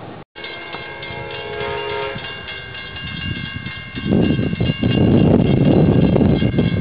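Amtrak Coast Starlight passenger train approaching: its locomotive horn sounds a chord of several steady notes. From about four seconds in, the loud rumble of the oncoming train comes in under the horn.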